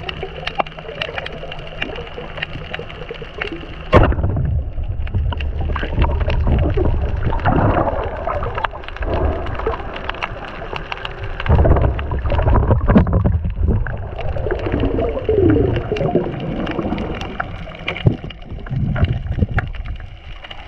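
Underwater sound picked up by a camera while spearfishing: muffled gurgling and rumbling water with many small clicks and crackles. A sharp knock comes about four seconds in, and heavier low rumbling follows it.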